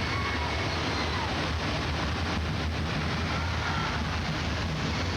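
Steady loud rumbling and rushing noise, like simulated earthquake and flood effects in a theme-park ride, with no break or single loud impact.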